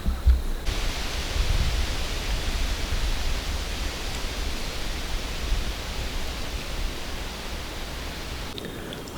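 Wind buffeting the microphone with a low rumble, under a steady hiss that cuts in abruptly about a second in and cuts off abruptly near the end.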